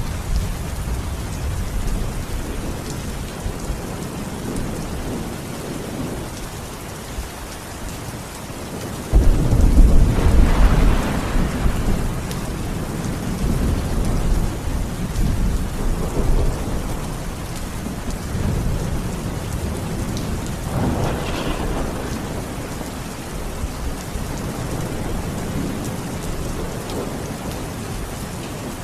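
Steady rain with thunder: a sudden loud thunderclap about a third of the way in that rumbles on for several seconds, and another, weaker roll of thunder a little past halfway.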